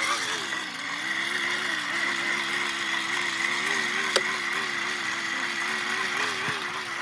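A motor or engine running steadily, its hum wavering slightly in pitch, with one sharp click about four seconds in.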